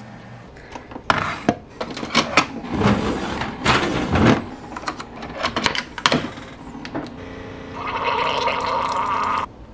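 Plastic clicks and knocks of a K-cup coffee pod being handled and loaded into a single-serve pod coffee brewer. Near the end the brewer runs and dispenses coffee into a mug with a steady gurgling hiss for about two seconds, then cuts off suddenly.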